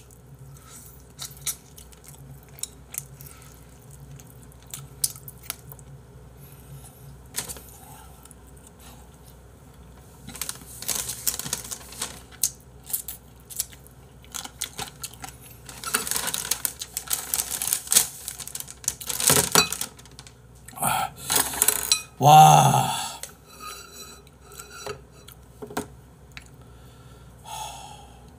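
Someone eating braised spicy chicken by hand and gnawing the last meat off the bones. Scattered small clicks come first, then a run of loud, noisy mouth sounds through the middle, and bowls knock against each other near the end.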